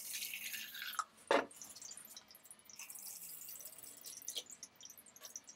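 Water pouring from a large plastic jug into a smaller plastic measuring jug, mixing film developer with water, with a single knock about a second in.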